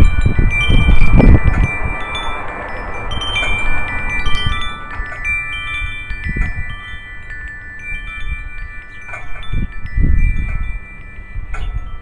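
Metal tube wind chimes ringing, many overlapping tones struck irregularly and left to ring on. Low rumbles come and go beneath them, loudest at the start and again about ten seconds in.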